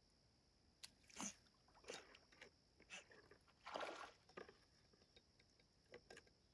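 North American river otter swimming and snorting: a series of short, faint breathy snorts and water sounds, the longest and loudest about four seconds in as it dives. The snorting is the otter objecting to the people nearby.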